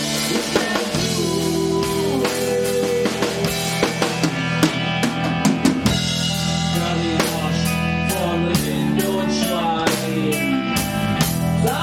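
Live rock band playing an instrumental passage: a drum kit beats steadily, with kick and snare hits, over sustained bass and guitar notes. The drum hits stand out more sharply from about a third of the way in.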